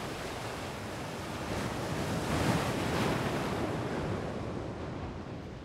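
Sea waves washing in: a soft, even rush that swells about halfway through and then fades out near the end.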